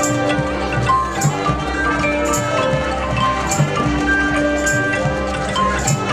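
High school marching band playing: held wind and brass notes over drums, with cymbal crashes about once a second.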